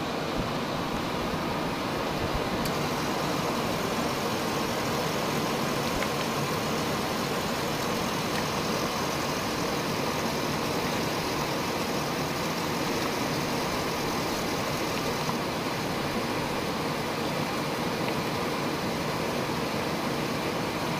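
Car engine idling with the air conditioning running, heard beside the open hood: a steady, even hum and hiss that does not change.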